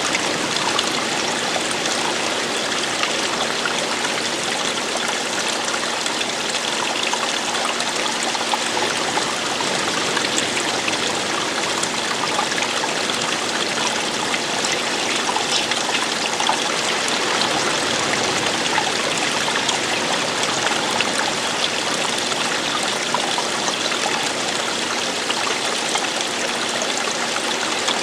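Running water falling and flowing steadily, an even, unbroken rush with no change in its course.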